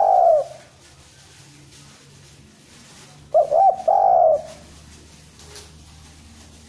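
Spotted dove cooing: the tail of one phrase at the start, then about three and a half seconds in a full phrase of a few short quick coos ending in a longer drawn-out coo.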